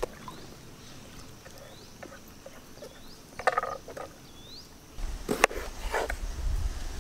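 Outdoor ambience: a steady high insect hum with a short high chirp repeated four times. A few light knocks and clinks of vegetables and metal bowls being handled, about halfway and again near the end, where a low rumble also sets in.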